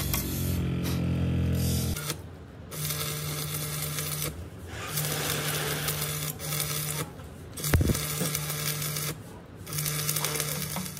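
Workshop machinery running in stops and starts: a steady low hum cuts in and out several times over a noisy background, with one sharp metallic knock about eight seconds in.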